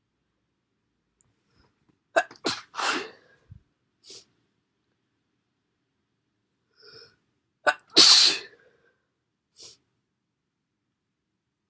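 A person with a cold sneezing twice: once about two seconds in and again, louder, about eight seconds in. Each sneeze opens with short sharp catches before the main blast.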